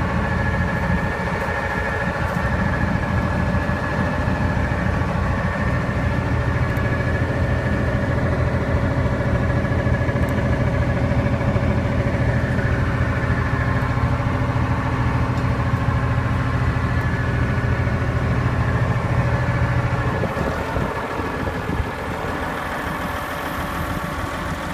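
John Deere 544 wheel loader's diesel engine running steadily; its low hum changes and eases off a little about twenty seconds in.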